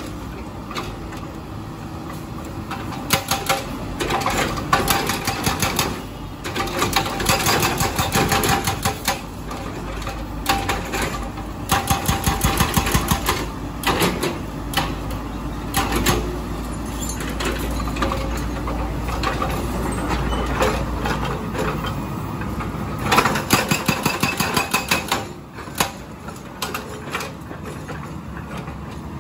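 Hydraulic breaker on a Komatsu PC200 excavator hammering a concrete road slab in several bursts of rapid blows, with the excavator's diesel engine running steadily between them.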